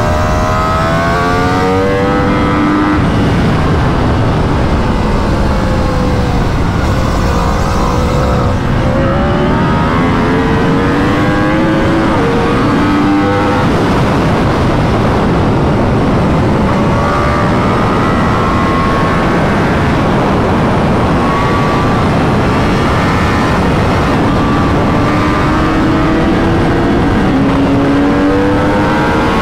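2021 Yamaha R1's crossplane inline-four, through an Akrapovic full titanium exhaust with a dB killer, at track speed: its pitch climbs and drops back several times as it accelerates and shifts, with steadier stretches between. Loud wind rush on the microphone runs under it.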